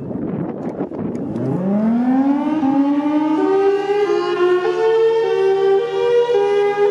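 Thunderbolt civil defense siren winding up. After a second or so of rumbling noise, its pitch rises steadily for about two seconds. It then holds a loud, steady wail that steps back and forth between two close pitches.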